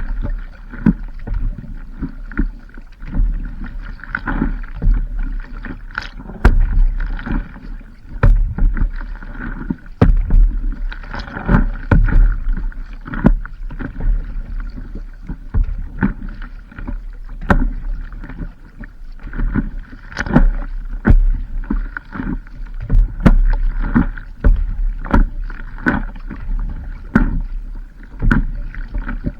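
Water splashing and sloshing around a stand-up paddleboard on the sea, in irregular surges every second or two.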